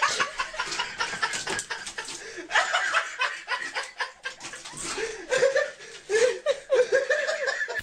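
Human laughter in repeated bursts, growing louder in the last few seconds and cut off abruptly at the end.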